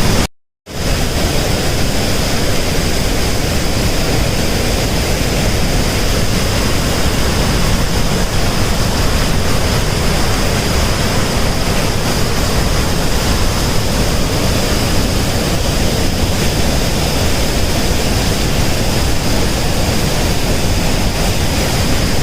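Devi's Fall waterfall rushing as a loud, steady wash of water noise, after a brief break just after the start.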